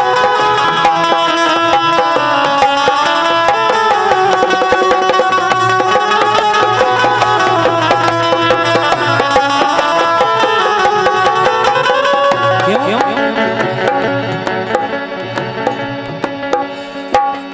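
Instrumental interlude of Indian folk music: a melody instrument plays a tune over steady tabla strokes, with no singing, and grows quieter near the end.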